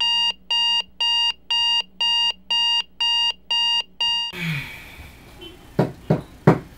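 Electronic alarm beeping about twice a second on a high steady tone, stopping abruptly a little past halfway. Then three sharp knocks on a door, the last the loudest.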